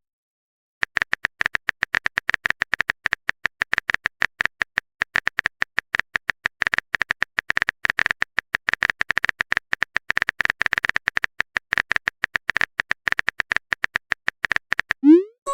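Keyboard typing sound effect: a rapid, irregular run of short key clicks, starting about a second in.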